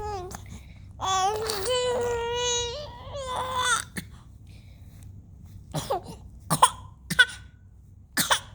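Five-month-old baby vocalising: long drawn-out cooing vowels in the first half, then a string of short, sharp squeaks and cough-like bursts.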